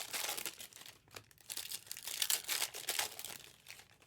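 Trading card pack wrappers crinkling and tearing as the packs are ripped open by hand, an irregular run of scratchy rustles with short pauses.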